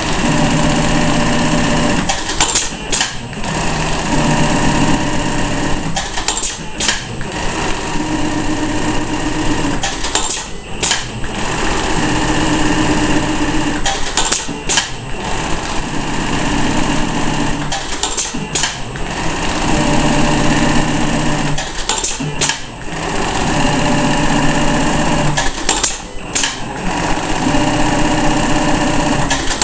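Juki AMS-223C computer-controlled pattern sewing machine stitching a row of bar tacks. Each tack is about three seconds of steady needle running, followed by a pair of sharp clicks between tacks, repeating about every four seconds.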